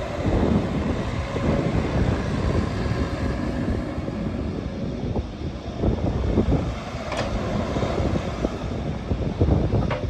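Bobcat E85 excavator running, with a few short metallic clanks about five, six and seven seconds in.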